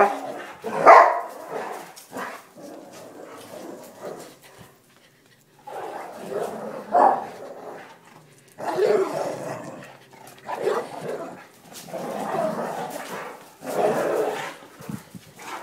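Boxer dogs barking in play, in about six separate bursts of a second or so with short pauses between.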